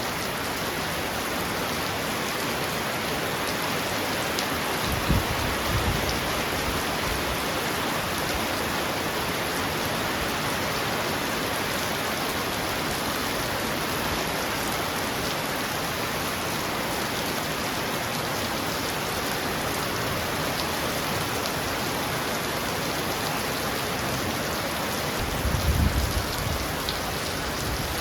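Heavy rain falling steadily on a roof, a dense even hiss of drops. Two brief low rumbles rise under it, about five seconds in and again near the end.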